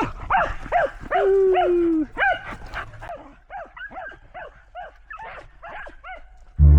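A dog barking excitedly while running, a quick string of short barks about two or three a second, with one longer drawn-out note about a second in. The barks grow fainter after about three seconds. Music comes in right at the end.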